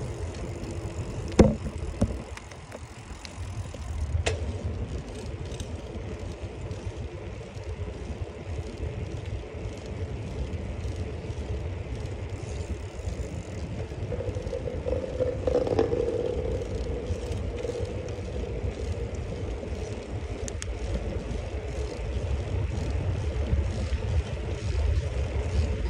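Riding a bicycle along a road: steady wind rumble on the phone's microphone and tyre noise. A sharp click about a second and a half in is the loudest sound, with a humming tone that swells and fades midway.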